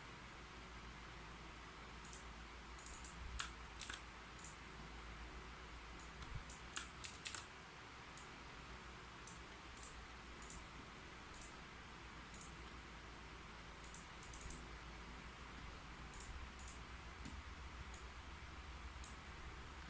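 Keyboard keys being typed in short, irregular bursts of clicks with pauses between them, over a faint steady low hum.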